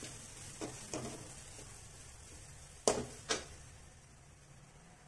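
Metal ladle stirring a dry onion-and-masala mixture in an aluminium kadai: a few faint scrapes and taps, then two sharp knocks of metal on the pan about three seconds in, half a second apart.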